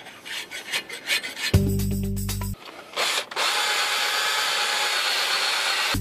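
Quick scraping strokes of a hand tool against the rusted steel of a steering knuckle's hub bore. After a short burst of music, a cordless drill spins a wire brush steadily against the bore, grinding off rust scale where the old wheel bearing sat.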